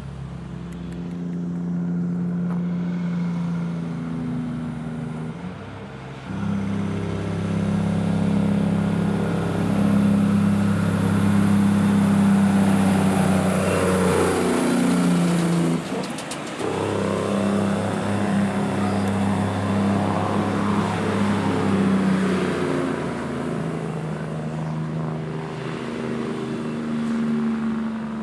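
Heavy diesel truck-and-trailer unit hauling a bulk cement tanker, its engine working steadily uphill. It grows louder as it climbs toward the listener, passes close by about halfway through, then pulls away.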